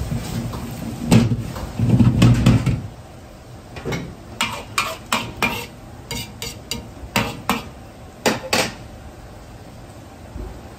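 An iron wok being swirled and shifted on a gas burner ring, with heavy metal knocks over the low rumble of the burner flame for the first few seconds. After that it goes quieter, with a dozen or so sharp metal clinks and taps of pots and utensils.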